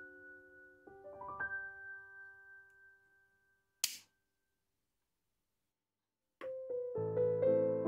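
Solo piano background music, its notes fading out. About four seconds in there is a single short, sharp click. After a stretch of dead silence the piano music starts again, fuller, near the end.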